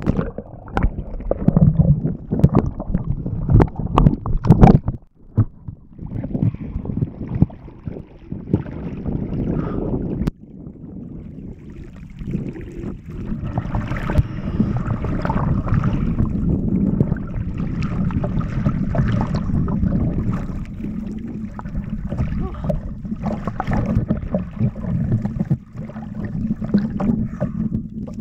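Water splashing and sloshing around a camera held at the surface, with sharp splashes and gurgling as it dips under for the first few seconds, then steadier lapping and rumble of choppy water against the floating kiteboard.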